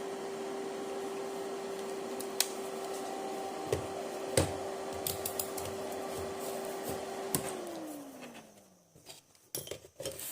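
Repaired battery charger running with a steady hum while charging a 12 V battery at about 4 amps, with a few sharp clicks. About seven seconds in it is switched off and the hum falls in pitch and fades as it runs down, followed by a few clicks of handling.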